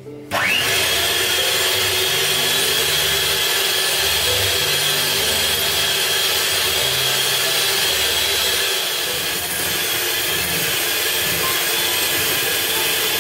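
Russell Hobbs electric hand mixer whisking egg whites in a glass bowl, whipping them to soft peaks. The motor whines up to speed just after the start, then runs steadily with a high whine over a lower hum.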